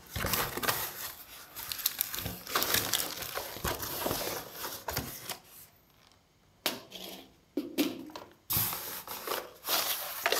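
Hands handling a cardboard box and its packaging: cardboard scraping and rustling with small knocks. There is a brief lull about halfway through before the handling resumes.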